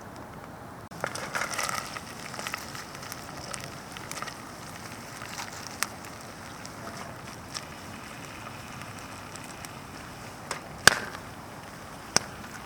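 Wood campfire crackling, with scattered sharp pops; a busier run of crackles about a second in and a loud single pop near the end.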